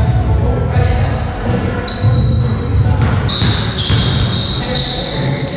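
Basketball dribbled and bouncing on a hardwood gym court during play, with players' voices, echoing in a large hall.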